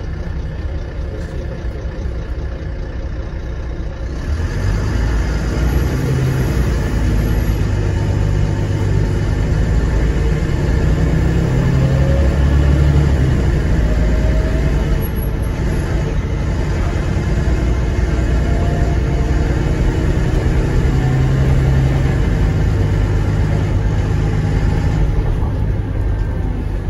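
Euro 3 Volvo D9B diesel engine of a Volvo B9TL double-decker bus, heard from inside the lower deck, running hard under load along with road noise. It gets louder about four seconds in, its note steps in pitch a few times, and it eases off near the end.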